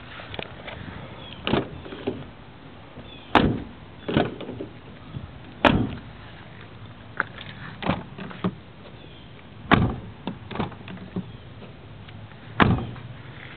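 About eight separate sharp thumps on a 2010 Toyota Corolla's door and body panels, some of them lined with Peel & Seal sound deadener, spaced irregularly one to three seconds apart.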